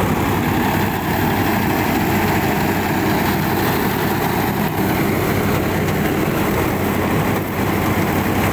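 Sonalika 50 DI three-cylinder diesel tractor engine running steadily under load as it drives a straw reaper, with the reaper's machinery running along with it.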